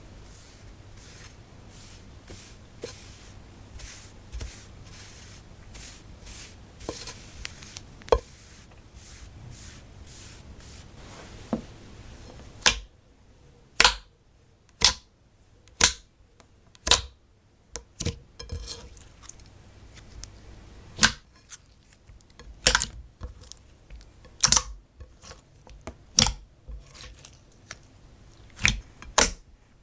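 Slime being worked by hand close to the microphone, giving sharp popping clicks as air pockets burst. The pops are irregular and soft at first, then louder at about one a second in the second half.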